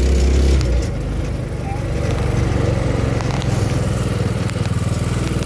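Small gasoline go-kart engine running; its note drops about a second in and then settles into a steady, even putter as the kart comes to a stop and idles.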